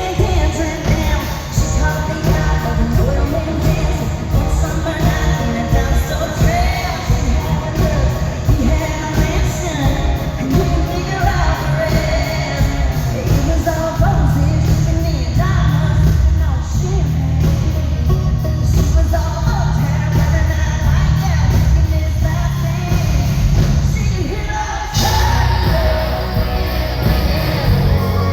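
A female lead singer and a live band performing a country-rock song in an arena, with a steady drum beat and bass under the sung melody, heard through a phone's microphone from the audience.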